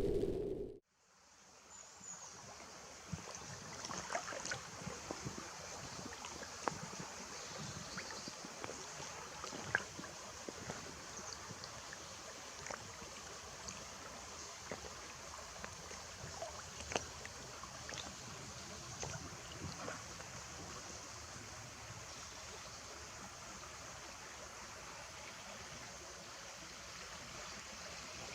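River water running, a steady rush with scattered small ticks and clicks, starting about a second in.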